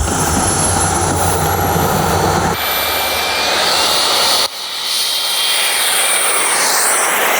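Radio-controlled model aeroplane's motor running in flight: a steady high whine over a rush of noise, its pitch slowly rising. The sound changes abruptly twice, about two and a half and four and a half seconds in.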